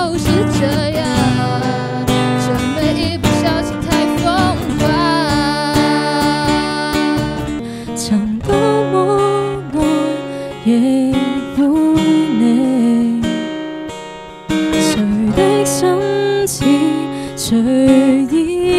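A woman singing Cantonese pop live into a microphone with strummed acoustic guitar accompaniment and percussive hits. About eight seconds in the music breaks off and a different female voice carries on with acoustic guitar alone.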